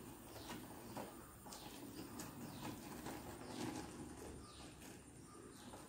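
Faint rustling and crinkling of a rubber balloon being pushed by hand into the neck of a plastic bottle, with a few soft clicks.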